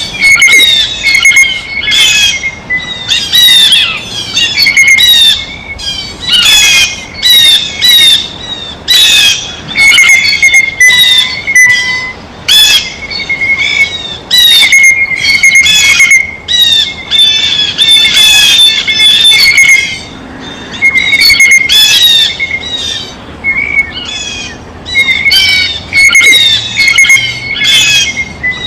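Blue jays giving loud, harsh squawking calls over and over in quick succession, with short gaps between them.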